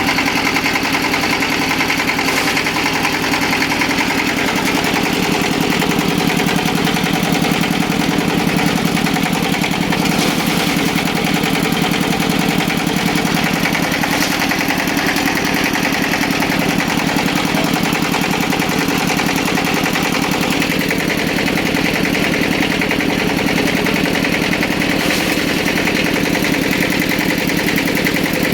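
Engine of an oil palm frond chopping machine running steadily at a fast, even beat.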